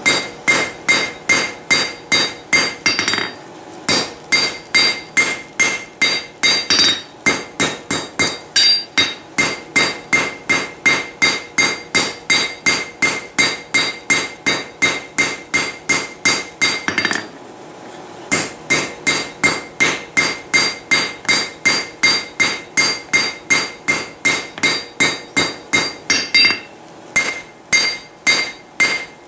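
Cross-peen hammer striking a red-hot railroad spike on an anvil, drawing out and flattening a froe blade. The blows come about three a second, each with a bright ringing tone, and the hammering stops briefly three times.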